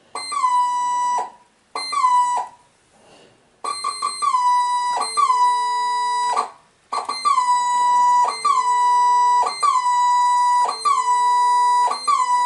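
Casio DH-100 digital horn sounding a series of notes, each swamped by a very loud, harsh squawk: a steady high tone that slides down into the same pitch on every note whatever key is pressed, with a saxophone sound faint underneath. The squawk is a common fault of this instrument.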